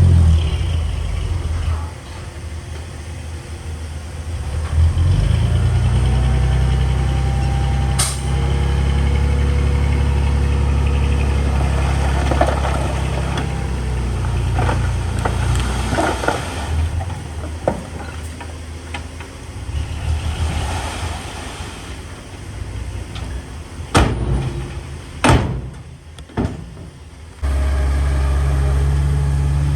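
Heavy diesel engines of earthmoving machinery running and working, the engine note rising and falling under load. Sharp metallic knocks are heard about eight seconds in and twice near the end.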